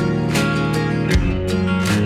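Background music: strummed acoustic guitar with a steady beat, the chord changing about halfway through.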